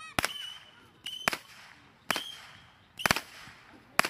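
A battery of small whistling fireworks firing in a string: five sharp cracks about a second apart, several with a brief high whistle.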